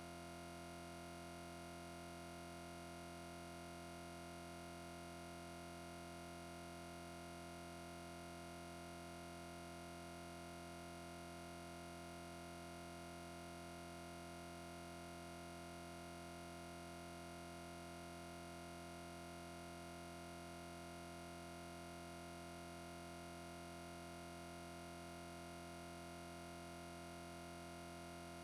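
Faint steady hum that does not change, with no clicks or other events.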